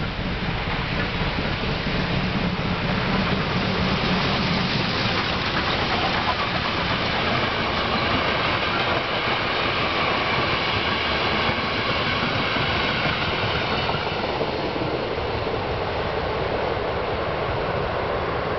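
Train of passenger coaches rolling past over a level crossing: a loud, steady rumble of wheels on rails that builds in the first seconds and eases slightly near the end.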